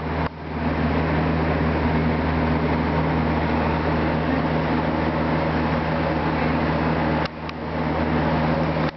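Steady low mechanical hum of running grow-room equipment, with a drone beneath a noisy hiss. The level dips briefly twice, just after the start and about seven seconds in.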